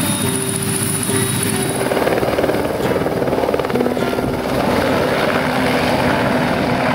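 Helicopter rotor beating rapidly as the helicopter takes off and flies away, with music underneath.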